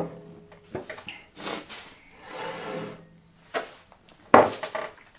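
Short breaths and sniffs from someone whose mouth is burning from very hot sauce, with a sudden louder burst about four seconds in.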